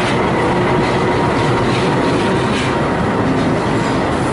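Passenger coaches of a train rolling past, steel wheels running on the rails with a steady rumble and a few irregular clacks over the rail joints.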